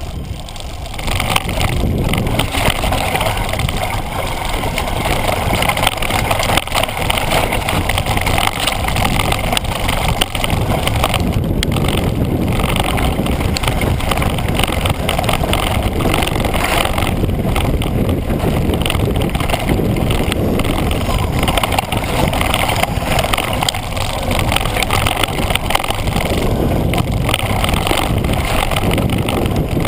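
Wind rushing over an action camera's microphone and a mountain bike's tyres running fast over loose gravel and dirt on a downhill trail, a steady rushing noise that picks up about a second in.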